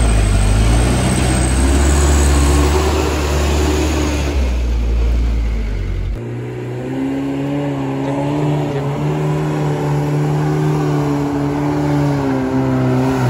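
A Mitsubishi Canter truck's diesel engine labours at full load up a steep incline with a deep, heavy drone. About six seconds in, the sound changes abruptly to a smaller engine held at steady high revs: a loaded Mitsubishi L300 pickup climbing the slope in low gear.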